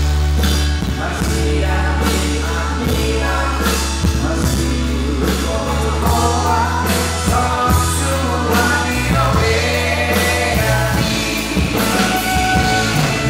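A live pop song: a man and two women singing into handheld microphones over accompaniment with drums and a steady bass line.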